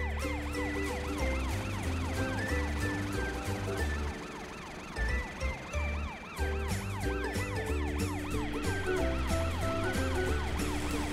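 Cartoon emergency-vehicle siren wailing in a fast, repeating rise and fall, over background music with a bass line.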